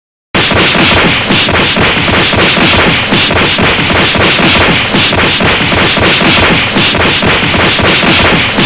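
A loud, dense stream of rapid impacts or crackling that starts suddenly out of silence and carries on steadily.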